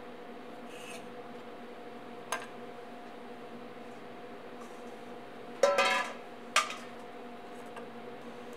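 Kitchen utensils handled on a wooden cutting board over a steady hum: a single click, then a short metallic clatter with ringing, the loudest sound, about five and a half seconds in, and a sharp knock a second later.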